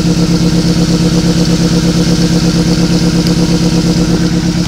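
Nissan Sentra four-cylinder engine idling steadily with number 1 injector plugged back in. The idle does not change, the sign that number 1 cylinder is not firing: its injector is either getting no power or no good.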